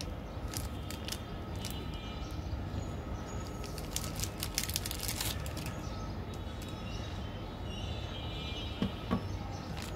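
Plastic wrapper of a chocolate wafer bar crinkling and tearing open, with a burst of crackling about four to five seconds in, over a steady background rumble.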